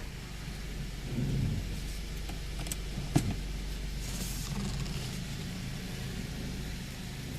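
A 2007 Honda Accord with its engine running while the steering wheel is turned at parking speed, giving intermittent low creaks that sound like an old bed. There is a sharp click a little over three seconds in.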